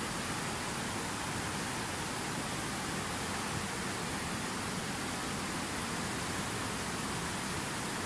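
Fast mountain river rushing over boulders in white-water rapids: a steady, unbroken rush of water.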